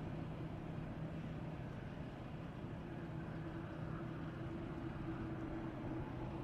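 Jet engines of a four-engined Boeing 747 freighter running at taxi power as the aircraft rolls slowly: a steady, even drone with low hums held under it.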